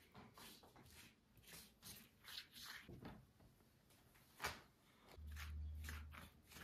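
Faint rustling and soft crinkling of a thin, oil-soaked yufka pastry sheet as it is lifted, folded over and brushed on a baking mat. There is a sharp tap about four and a half seconds in, and a short low hum lasting about a second near the end.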